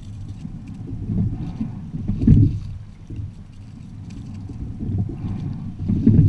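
A quad sculling boat under way: water rushing along the hull and wind on the microphone, swelling about once every four seconds with each oar stroke, with faint clicks from the oars and oarlocks.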